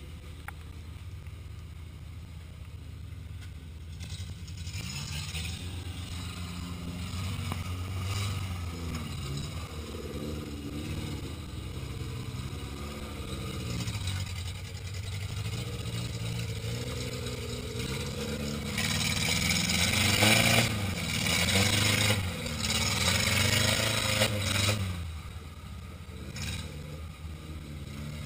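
A lifted rock-crawling Jeep's engine revving up and down under load as it crawls over boulders, with tyres scraping on rock. The sound is loudest and harshest from about 19 to 25 seconds in, then drops back.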